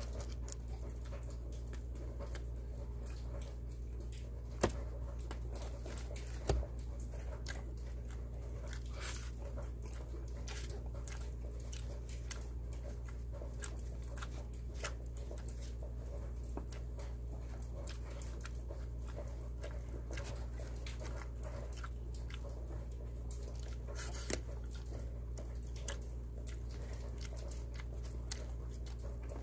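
Close-miked chewing of a mouthful of pizza: a string of soft, wet mouth clicks and smacks, with two sharper clicks about five and six and a half seconds in, over a steady low electrical hum.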